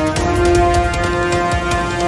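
Background music: held electronic chords over a steady beat, with a change of chord just after the start.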